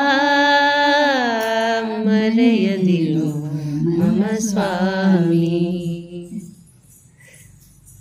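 An elderly man singing a Haridasa devotional song solo, without accompaniment, in long held notes that slide down in pitch. The singing breaks off about six seconds in.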